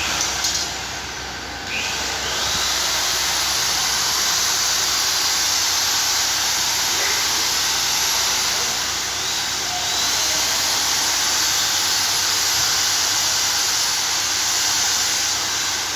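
A steady, loud rushing hiss from workshop equipment, starting about two seconds in and dipping briefly around the middle.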